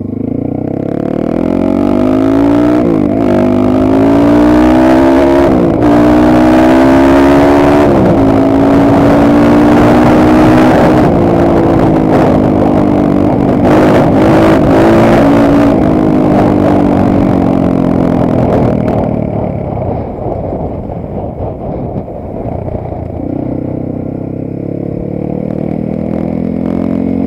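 Geon Dakar GNS300 300 cc enduro motorcycle engine under throttle while riding. The revs climb with sharp drops in pitch at gear changes about three, six and eight seconds in, hold high, fall away after about eighteen seconds, and build again near the end.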